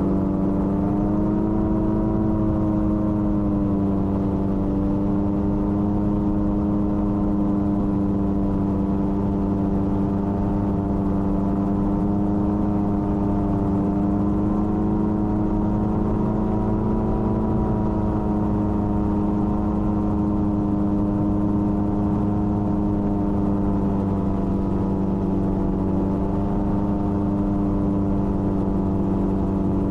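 Gyroplane's piston engine and pusher propeller running steadily in flight, with a small wobble in pitch about two seconds in.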